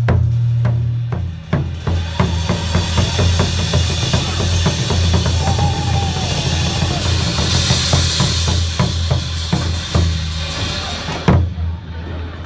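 Drum-kit music with a deep, steady bass and quick snare strokes. The drumming is densest from about two seconds in until near the end.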